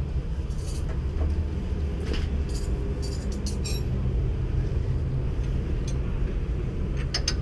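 Steady low rumble of an engine running, with scattered light metallic clicks and clinks of tools being handled.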